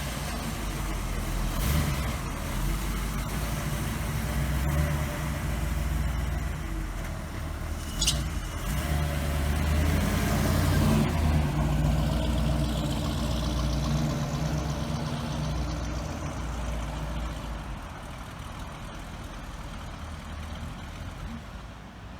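Car engine running, its revs rising and falling, then fading away over the last few seconds. There is one short click about eight seconds in.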